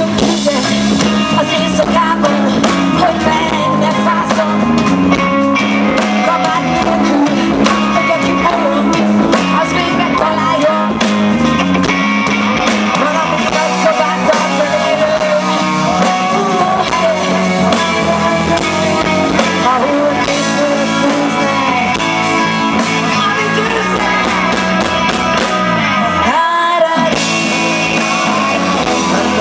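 Live rock band: a woman singing lead over electric guitar, keyboard and drums, played loud through the PA. A few seconds before the end the backing briefly drops out for a moment, then comes back in.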